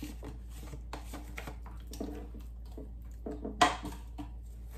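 Irregular knife taps on a wooden cutting board as cucumber is sliced, mixed with a spoon scraping quark out of a plastic tub; one louder knock about three and a half seconds in.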